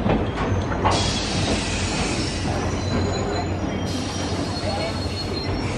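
Train running past on steel rails, wheels squealing in thin high tones over a steady rumble, with a sharp clank about a second in.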